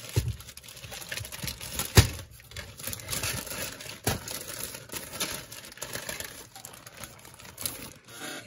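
Clear plastic bag crinkling and rustling as bagged plastic model-kit parts are handled and lifted out of the kit box, with a sharp knock about two seconds in and a lighter one about four seconds in.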